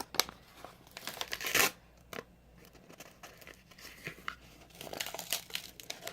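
Packaging being crinkled and torn open by hand: a dense run of crackles with one loud rip about a second and a half in, then fainter, scattered crinkling.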